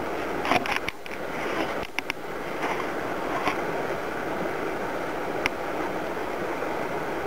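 Steady outdoor background rushing, with a few short, sharp clicks about half a second, two seconds and five and a half seconds in.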